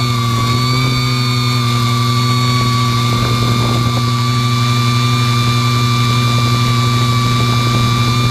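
Hexacopter's electric motors and propellers whining steadily in flight, with several even tones at a constant pitch, heard up close from a GoPro mounted on the craft.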